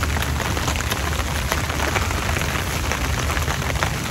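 Rain falling on an umbrella held overhead: a dense, steady spatter of many small drop ticks over a low rumble.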